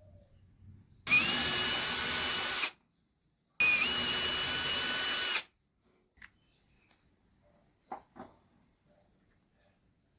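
Small electric drill run in two short bursts of about a second and a half each: a steady high motor whine over grinding noise, starting and stopping sharply. A few light knocks follow.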